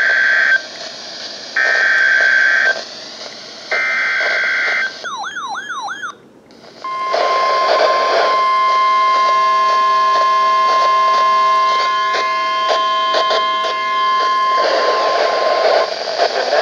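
NOAA Weather Radio emergency alert over a receiver. Three short bursts of SAME digital header tones come first, then a brief warbling sweep. After that the steady 1050 Hz warning alarm tone sounds for about eight seconds, heralding a severe thunderstorm warning, and fades out near the end.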